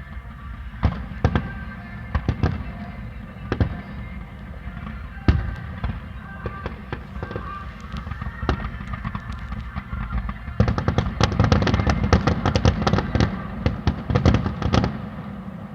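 Aerial fireworks going off: scattered single bangs at first, then from about two-thirds of the way in a dense barrage of rapid bangs and crackles that dies away near the end.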